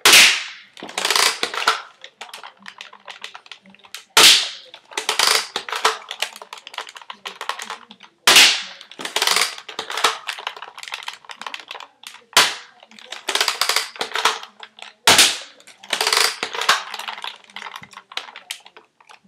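Modded Nerf dart blaster fired five times, about every three to four seconds, each shot a sharp crack. Between shots come bursts of plastic clicking and rattling as it is primed and reloaded.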